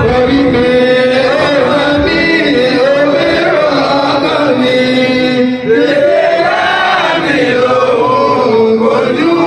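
A man's voice chanting a melody in long held notes that slide between pitches, with a brief break a little past halfway.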